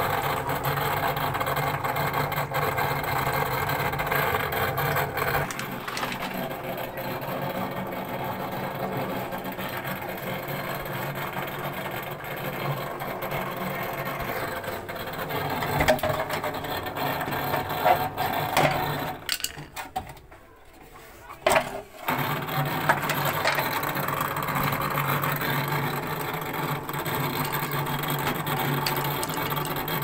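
Washing machine drain pump running with a steady mechanical hum, a noise bad enough that the pump needs replacing. It cuts out for about two seconds a little past the middle, with a few sharp knocks around that gap.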